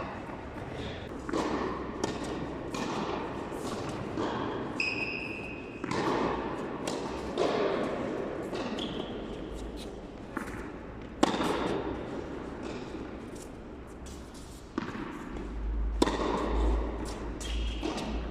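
Tennis played on a court: racket strokes and ball bounces as sharp knocks, loudest about two-thirds of the way in and near the end. Between them are short high shoe squeaks and shuffling footsteps.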